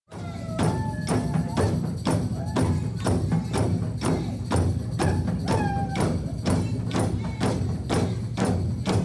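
Hand-held frame drums beaten in a steady beat of about three strokes a second, with tambourine jingles and voices over the beat.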